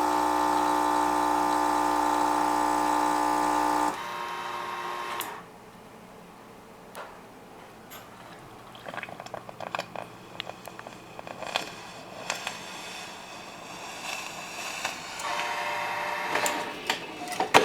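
Electric kitchen appliance motor or pump humming steadily, then switching off about four seconds in; after it, quiet with scattered clicks and knocks, and a fainter hum briefly returns near the end.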